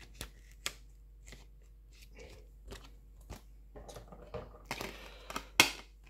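Plastic 4K Blu-ray keep case being handled: scattered light plastic clicks and soft rustling of the paper cover insert and sleeve, with one sharper click about five and a half seconds in as the case is opened and the disc taken off its hub.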